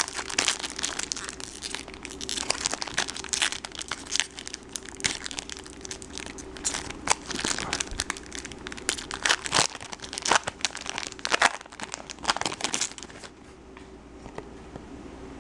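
A sealed trading card pack's foil wrapper being crinkled and torn open by hand, a dense run of crackles that stops about 13 seconds in.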